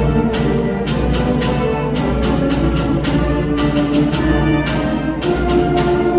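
A school concert band playing live: held wind and brass notes over repeated percussion strikes.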